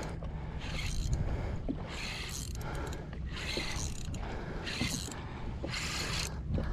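Pedal-drive kayak under way: the drive mechanism whirring with each pedal stroke, along with water wash, recurring about once a second over a steady low wind rumble on the microphone.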